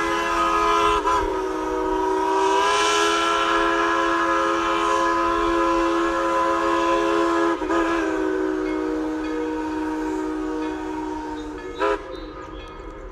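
Locomotive air horn sounding a long, held chord of several notes, with brief breaks about a second in, midway through and near the end, then fading away.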